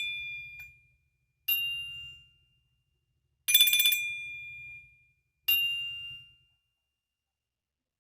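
Nokia 6 ringtone playing: four bell-like chimes about two seconds apart, alternating between two different tones, each dying away over about a second, with a faint low buzz under each. The tones stop about six and a half seconds in.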